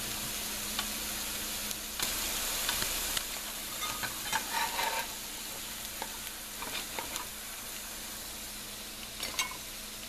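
Plant-based wings frying in oil in a pan, sizzling steadily, with scattered light clicks and scrapes as they are stirred.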